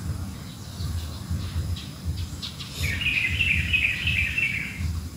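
A songbird twittering: a few short high chirps, then a quick warbling run of notes lasting about two seconds, over an uneven low rumble.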